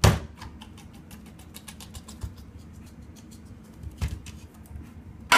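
Opened Spam tin turned upside down and knocked on a plate to shake the loaf of meat out: a sharp knock at the start, a run of small light taps and clicks, and another knock about four seconds in.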